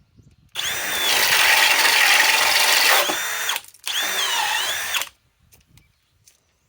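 Harbor Freight Hercules 1200 in-lb brushless drill driver, in low gear (speed 2), boring with a 2-inch Diablo bit. It runs for about two and a half seconds, stops briefly, then runs again for about a second. The motor's whine sags in pitch under load and recovers during the second run.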